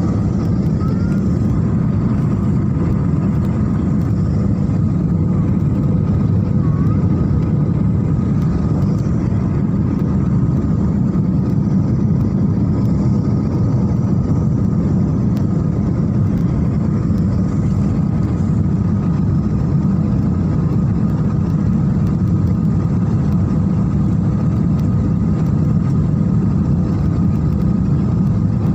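Steady jet airliner cabin noise: a constant low rumble from the engines and airflow, with a faint steady hum above it.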